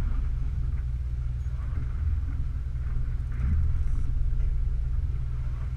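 Steady low rumble of a party fishing boat's engine running at idle.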